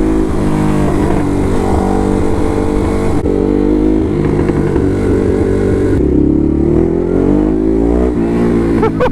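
Ducati motorcycle engine running under way with a deep rumble, its pitch rising and falling as the rider accelerates and shifts gears.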